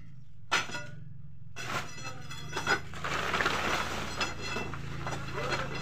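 Iron bar striking and working broken concrete rubble: a few separate sharp knocks, then from about three seconds in a steady rushing noise, over a low hum.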